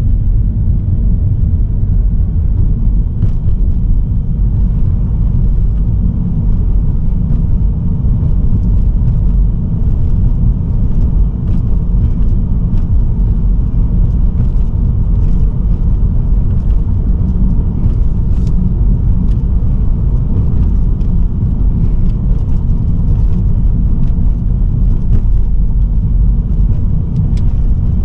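Steady low road and tyre rumble of a car driving, with faint light ticks now and then.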